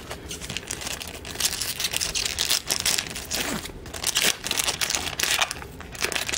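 Foil trading-card pack wrapper being torn open and crinkled by hand, a run of irregular crackles and rustles.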